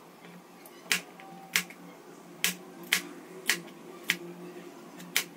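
Kitchen knife chopping okra on a plastic cutting board: about seven separate sharp knocks of the blade on the board, slow and uneven.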